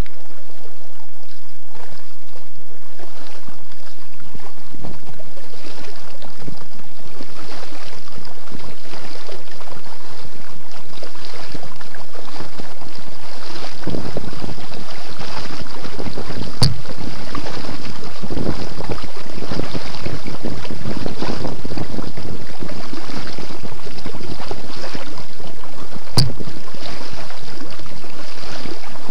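Loud wind noise buffeting the microphone, over water sloshing around a sit-on-top kayak being paddled. It grows stronger about halfway through, and two sharp knocks come through, one near the middle and one later on.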